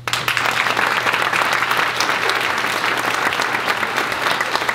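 Audience applause that breaks out all at once and carries on steadily: many hands clapping.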